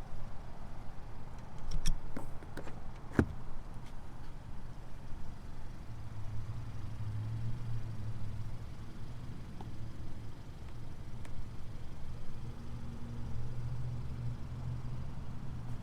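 A few sharp clicks and one louder knock in the first few seconds, then a low steady hum from a 2020 Hyundai Sonata Limited.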